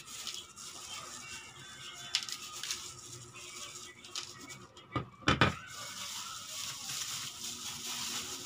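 Food-prep handling: salt tipped and scraped off a plastic plate onto raw chicken in a plastic basin, with scattered light clicks and two sharp knocks about five seconds in. After that comes the steady rustle of a plastic-gloved hand working the chicken.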